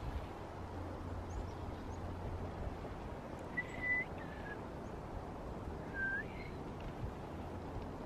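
A person whistling to call in a chickadee: a held higher note dropping to a lower one, like the chickadee's two-note fee-bee song, about three and a half seconds in, then a shorter upward-curving whistle about two seconds later.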